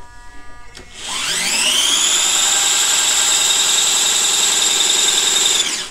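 Small geared DC micromotors driving the front roller of an RC model compactor spin up with a rising whine about a second in, run steadily at full speed, then stop just before the end. They turn far too fast for the 60 rpm motors that were ordered; the builder thinks they run at 200 rpm or more.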